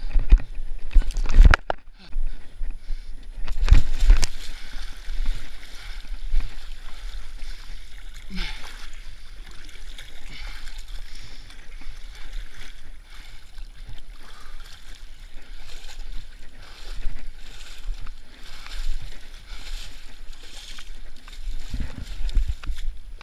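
Muddy water sloshing and splashing around a runner's legs as they wade through a flooded trench. Heavy thumps and knocks come in the first few seconds, from clambering over stacked rubber tyres.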